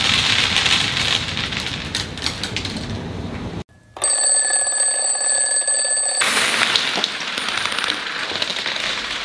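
A rustling, hissing noise breaks off suddenly. A steady electronic alarm-like beep tone, held about two seconds, follows, and then the rustling noise comes back.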